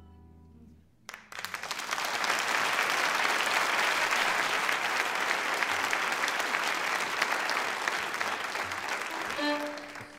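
Minced meat and chana daal frying in a steel pot: a dense, steady sizzle with fine crackle that starts suddenly about a second in. A short pitched tone sounds near the end.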